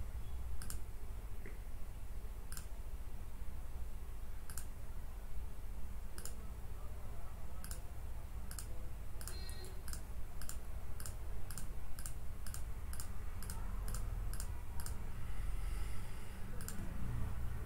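Sharp clicks over a low steady hum: a few seconds apart at first, then about two a second from about eight seconds in, stopping a couple of seconds before the end.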